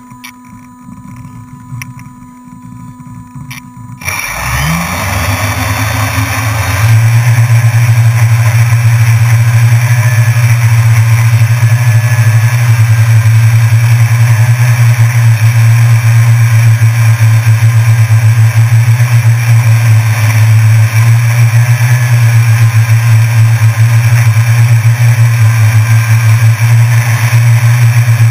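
Small camera drone's electric motors and propellers spinning up about four seconds in, the pitch rising over a few seconds, then a loud, steady buzzing hum as it lifts off and hovers.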